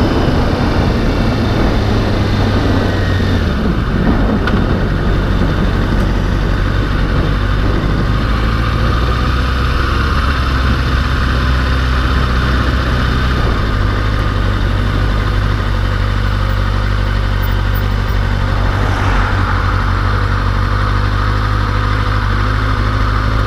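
Kawasaki Ninja 636's inline-four engine running through its stock exhaust, a steady engine tone whose pitch shifts about 3.5 s in and again about 13.5 s in.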